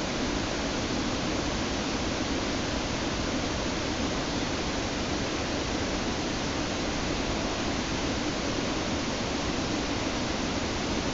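Waterfall's rushing water: a steady, unbroken rush of noise.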